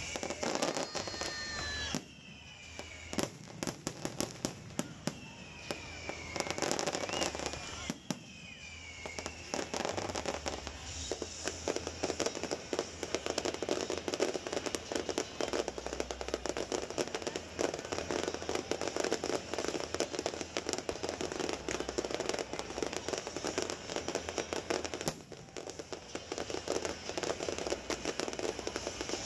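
Fireworks display: a dense run of bangs and crackling, with several falling whistles in the first few seconds, thickening into a near-continuous barrage from about ten seconds in.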